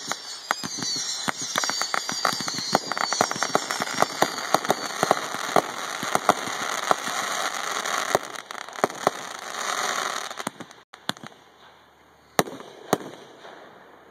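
Aerial fireworks going off: a dense run of rapid crackling pops over a rushing hiss, with a high wavering whistle through the first few seconds. The crackle dies away about two-thirds through, and two sharp bangs about half a second apart follow near the end.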